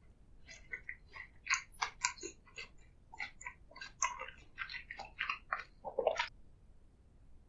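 Close-miked ASMR eating: a rapid run of sharp clicks and crackles as food is chewed, stopping about a second before the end.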